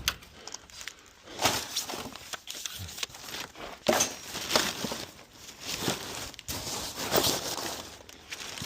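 Irregular rustling, crinkling and short knocks of mixed junk being handled and sorted by hand.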